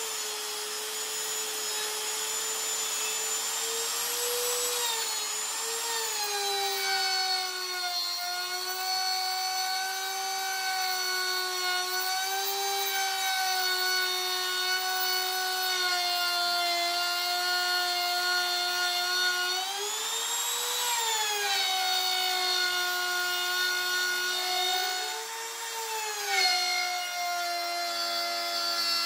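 Bosch Professional trim router running with a steady high whine while its bit cuts plywood. The pitch sags and holds lower under the cut, and rises briefly twice as the load eases.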